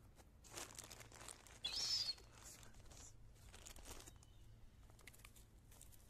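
Crinkly packaging being handled, rustling in several short spells. A short high squeal about two seconds in is the loudest sound.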